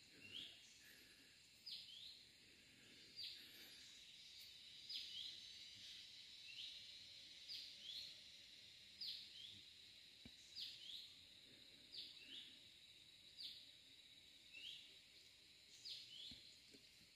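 Faint repeated chirping call of an animal in the trees: two quick falling notes about every one and a half seconds, over a thin steady high tone.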